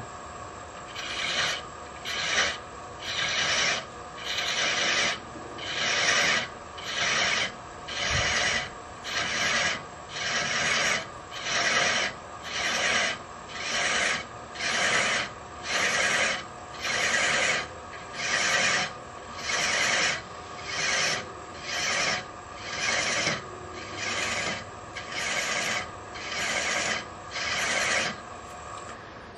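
Hand-held thread chaser cutting threads into a wooden insert spinning on a lathe: a rasping cut on each pass across the work, repeated evenly a little more often than once a second, over the lathe's steady running. The first, still crude threads are being established.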